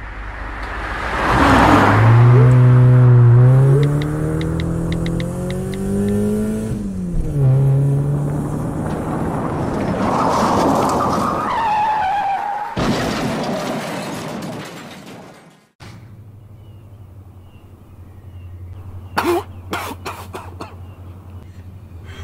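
Car sound effects: an engine revving up and down, tyres squealing, then a loud rushing noise that cuts off suddenly about two-thirds of the way through. A quiet low hum follows, with a few sharp clicks.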